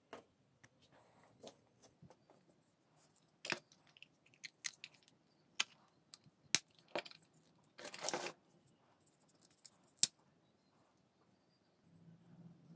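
Hard plastic clicking and scraping as the end cap of a disposable vape's plastic casing is pried loose with a small tool: scattered sharp clicks, a longer scrape about eight seconds in and a sharp snap near ten seconds. A low steady hum comes in near the end.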